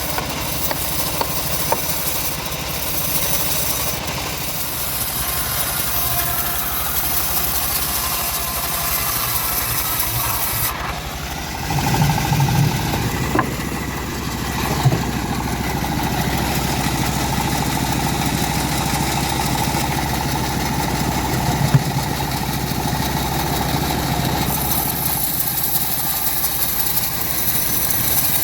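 Engine-driven homemade bandsaw mill running steadily. About eleven seconds in the sound changes and a steady mid-pitched tone holds until near the end, with a few heavier thumps along the way.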